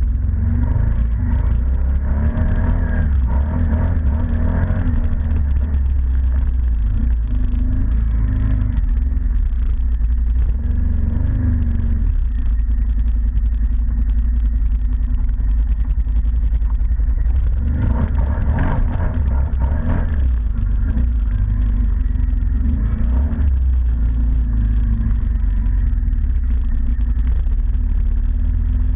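ATV engine running under way with a steady low drone, revving up and easing off a few seconds in and again past the middle.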